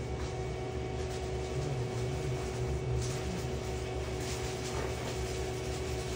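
Steady hum of sandwich-shop equipment, holding several fixed pitches over a low rumble, with a few faint light clicks and rustles of toppings being handled.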